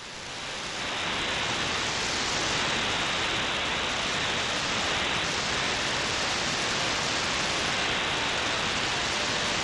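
Steady hiss of shortwave static from an SDRplay RSPdx receiver in AM mode, tuned between stations in the 31 m band where no signal is coming through. The hiss builds over the first second, then holds level.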